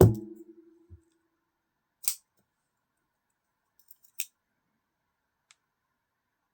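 A thump with a brief low ring, then two sharp clicks about two seconds apart and a few faint ticks: a Benchmade Mini Griptilian's blade being swung open and shut, its AXIS lock snapping, as the blade centering is checked after loosening the pivot.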